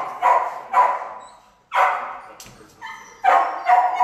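A dog barking repeatedly, sharp barks about half a second apart with a short pause about a second in, each echoing off the tiled walls of a shelter kennel.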